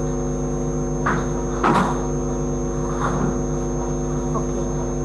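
Steady electrical mains hum on a video-call audio feed: a low buzz with a faint high whine above it. Two short scratchy noises come about one and one and a half seconds in, the second the loudest.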